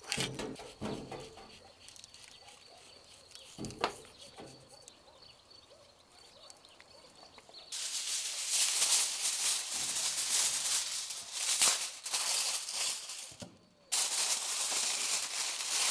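A pepper mill's gritty clicks at the start. About halfway through, loud crackling and rustling of aluminium foil begins as it is pulled off the roll and pressed and crinkled over a baking tray, with a short pause about a second before the end.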